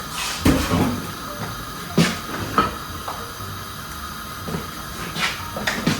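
Spoon knocking against a saucepan several times as milk is stirred while it heats, over a steady low hiss.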